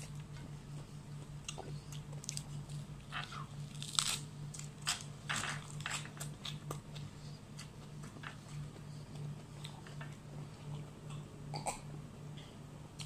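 Close-up eating sounds: a person chewing and crunching crisp lettuce leaves with her food, in scattered crunchy bites, loudest about four to five seconds in. A steady low hum runs underneath.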